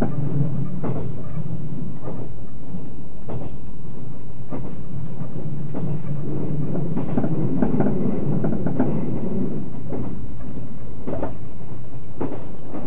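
JR 381 series limited express electric train running, heard from inside the car: a steady low rumble of wheels on rail with a clack from the rail joints about once a second.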